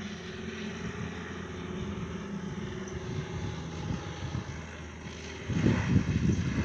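Kitfox IV floatplane's engine and propeller droning steadily as it comes in low over the water to land. From about five and a half seconds in, wind buffets the microphone loudly.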